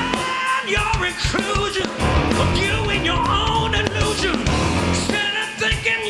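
Live rock band playing, with an electric guitar lead of bending, wavering notes over drums. The bass drops out for about a second at the start and again near the end.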